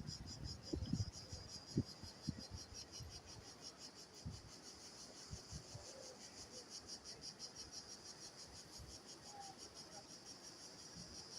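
Crickets chirping in a steady, rapidly pulsing high trill, with a few soft low thumps in the first half.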